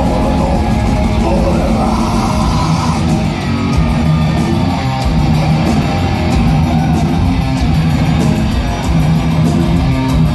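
Death metal band playing live: distorted electric guitars and bass over fast drumming, loud and dense, with rapid, even cymbal strikes from about three seconds in.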